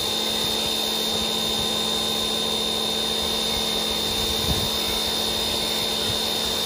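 Pressure washer running steadily with a high whine and a low hum, its water jet spraying onto an engine and transmission to rinse off degreaser.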